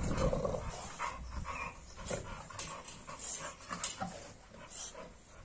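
A bully-breed dog panting and sniffing at the ground, loudest at the start and fading.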